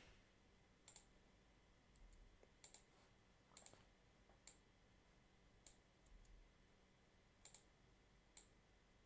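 Faint computer mouse clicks: about ten short clicks spread irregularly, several coming in quick pairs.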